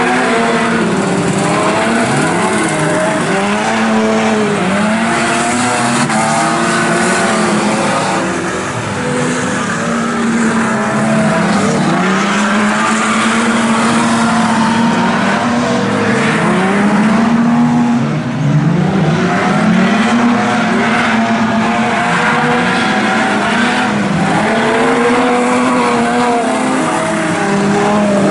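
Street stock racing sedans' engines lapping a dirt speedway oval. Several cars can be heard at once, their engine notes rising and falling again and again as they come off and back onto the throttle.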